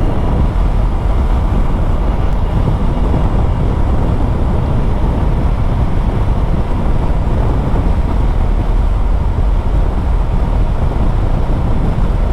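Motorcycle riding at a steady cruising speed, heard as a constant rush of wind and road noise with the engine underneath; the level stays even throughout. The bike is a 2018 Yamaha YZF-R3.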